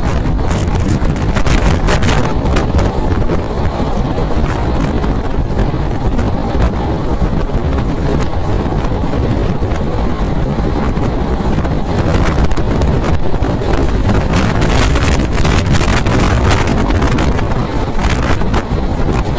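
Express passenger train running at speed, heard from on board: steady rumble of wheels on track with wind buffeting the microphone.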